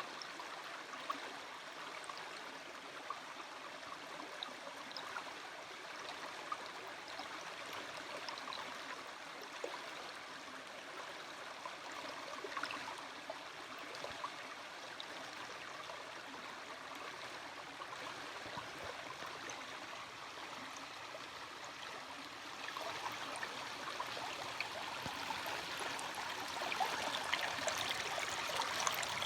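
A stream running over rocks: a steady rush and babble of water that grows louder about three-quarters of the way through.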